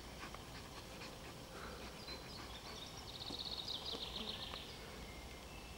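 Faint ambience with a songbird singing a rapid run of short, high repeated notes for about three seconds, starting about two seconds in.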